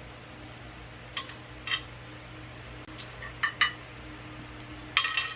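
Eating utensils tapping and clinking against a dish in a handful of short, separate clicks, ending in a brief quick rattle.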